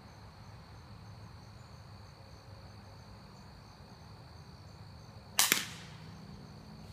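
A single shot from a Crosman Quest break-barrel spring-piston air rifle: a sharp crack about five seconds in, followed a split second later by a second, shorter crack. The pellet hits and knocks down the can target.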